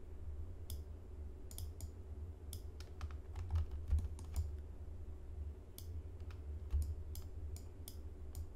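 Computer keyboard and mouse clicking while working at a computer: irregular single taps and short flurries of clicks. A steady low hum runs underneath.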